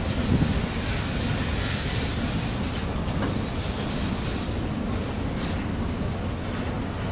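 Loaded flatcars of a railway maintenance train rolling slowly past: a steady rumble of steel wheels on the rails with a few faint clicks.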